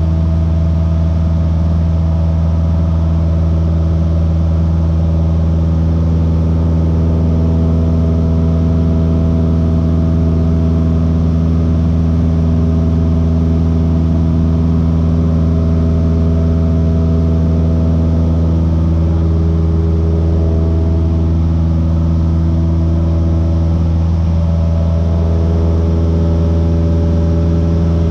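Light aircraft's piston engine and propeller droning steadily, heard inside the cabin; the pitch shifts slightly about twenty seconds in.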